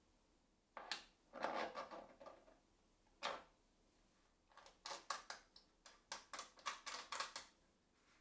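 Hands handling wooden jig parts on a paper-covered plywood sled: a cluster of knocks and scraping about a second in, a single knock a little after three seconds, then a quick run of about ten light taps and clicks.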